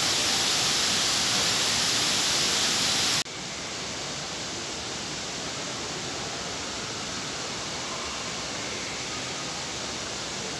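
Steady hiss of water falling in an indoor water curtain. About three seconds in it cuts off abruptly and gives way to a quieter, even hiss.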